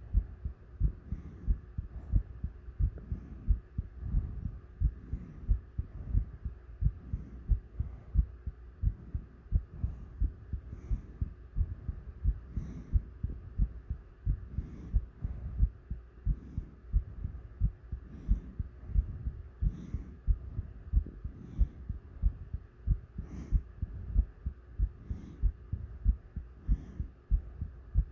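A human heartbeat: evenly repeating low thumps, with a faint steady hum beneath.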